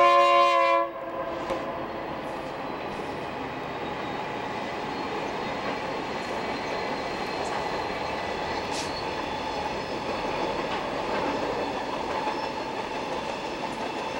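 Burlington Northern SD70MAC locomotive air horn sounding several notes at once, cutting off about a second in. Then empty coal hopper cars rolling past: a steady noise of steel wheels on rail with occasional clicks.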